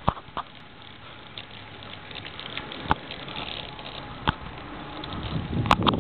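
Outdoor wind noise on the microphone, building up toward the end, with a few sharp clicks.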